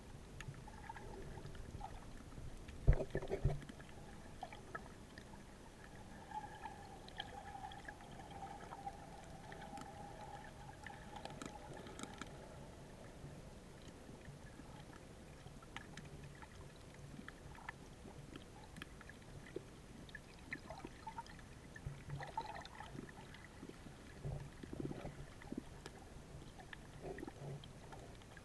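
Underwater ambience heard by a camera submerged over a coral reef: a muffled water wash with scattered small clicks and a sharp double knock about three seconds in. A faint steady hum comes and goes a quarter of the way through.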